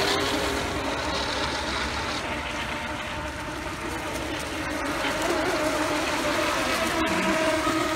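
Several Pro Boat Recoil radio-controlled electric racing boats running flat out, their brushless motors making a steady whine at several shifting pitches over the hiss of their spray.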